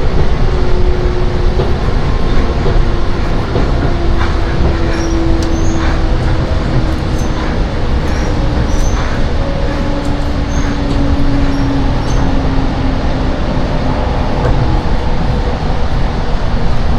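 Seibu 10000 series Red Arrow limited express train running, heard from inside the passenger car: a loud, steady rumble of wheels and running gear, with a humming tone that slowly falls in pitch.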